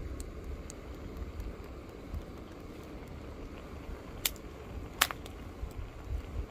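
Faint steady hiss and crackle of cream pasta simmering in a pan on a canister gas stove, with wind rumbling on the microphone. Two sharp clicks come about four and five seconds in.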